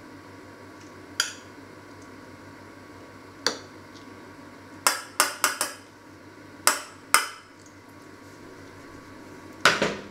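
Metal spoon knocking against a stainless steel saucepan while rice is served out of it: scattered sharp clanks, a quick run of four about halfway through, and the loudest one near the end.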